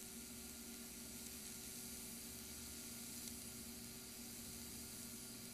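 TIG welding arc running steadily on carbon steel: a faint, even hiss with a low hum underneath.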